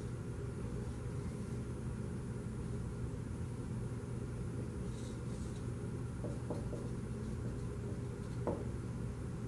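Dry-erase marker drawing on a whiteboard, with a few faint strokes and squeaks in the second half and a short sharper squeak near the end, over a steady low room hum.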